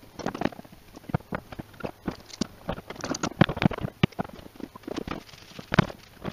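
Steel F-style bar clamps being fitted and tightened on a glued-up wood blank: a rapid, irregular run of clicks and knocks as the clamps' metal jaws and bars meet the wood and the workbench.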